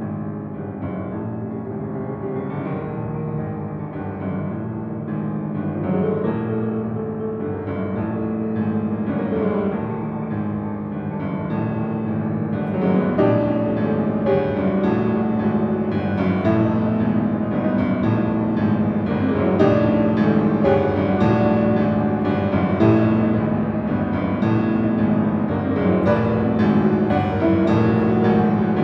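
Solo grand piano played live: fast, dense repeated chords centred in the low-middle register, growing louder about halfway through.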